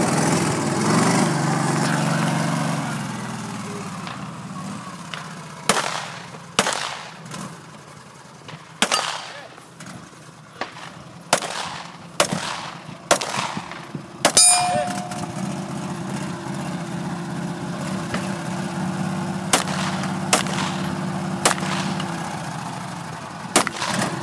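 About a dozen pistol shots, irregularly spaced, fired from a moving John Deere Gator utility vehicle at steel targets; at least one is followed by a short metallic ring of struck steel. The Gator's engine runs underneath, loudest at the start and again in the later part.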